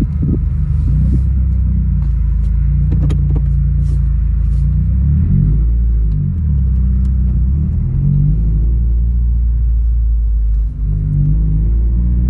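Subaru WRX's turbocharged FA20DIT flat-four engine running under way, with road noise, heard through open windows. The engine note dips and rises a few times, and there is a brief drop in level about eleven seconds in.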